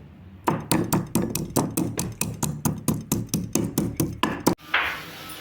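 Rapid, even knocking, about five strikes a second, starting about half a second in and cutting off suddenly near the end, followed by a brief hiss.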